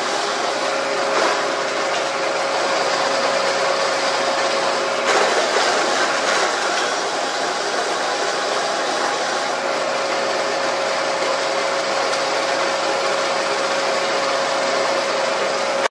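Belt-driven semi-automatic wood drilling machine running steadily while its bit bores into a timber for a door frame. A steady whine drops out about five seconds in and returns near ten seconds, with a few short knocks along the way.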